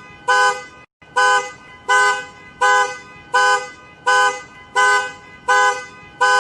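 Two-tone car horn honking over and over in an even beat, about nine short honks, roughly one and a half a second, with a brief cutout about a second in.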